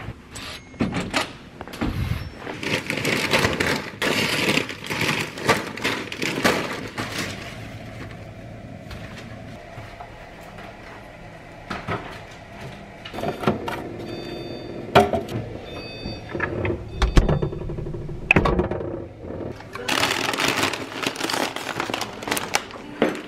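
Household handling sounds: fabric rustling close to the microphone for the first several seconds, then scattered knocks and clicks as groceries are put into a fridge, and plastic chip bags crinkling near the end.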